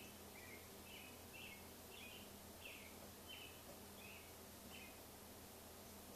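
Near silence, with a bird's faint short high chirps repeating a little more than once every half second, stopping about five seconds in.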